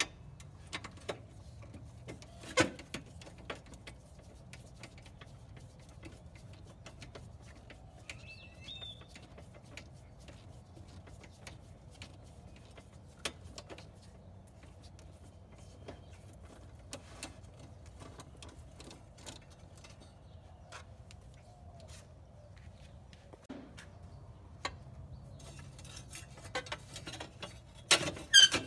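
Scattered small clicks and taps of hand tools working on a riding lawn mower, over a low steady hum, coming thicker and louder near the end. A bird chirps once about eight seconds in.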